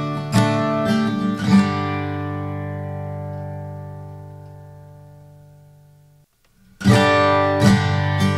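Background music of strummed acoustic guitar. About two seconds in, a chord rings and slowly fades away. After a short silence the strumming starts again near the end.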